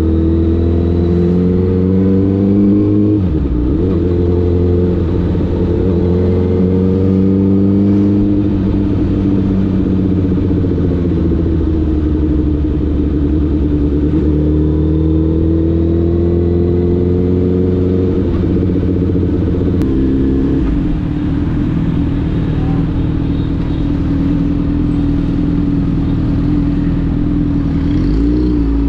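Honda CBR1000RR's inline-four engine running on the move, its note rising and falling with the throttle. It dips sharply about three seconds in and again near the end, and eases off about two-thirds of the way through.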